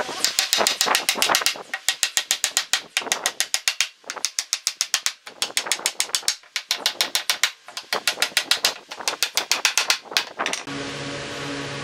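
Claw hammer driving nails into pine pallet slats in quick runs of strikes, several blows a second with short pauses between runs. Near the end the hammering stops and a steady hum takes over.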